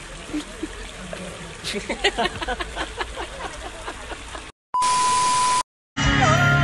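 A woman and a man laughing in rapid, uneven bursts. Then, after a sudden cut to silence, a short steady high beep over hiss. Loud music starts near the end.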